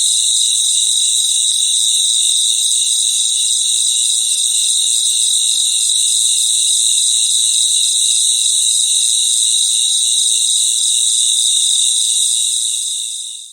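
Crickets trilling in a steady, high-pitched chorus, which fades out near the end.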